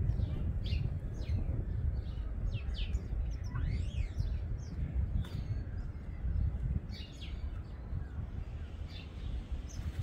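Garden birds chirping in short, scattered high calls, with one rising call about three and a half seconds in, over a steady low background rumble.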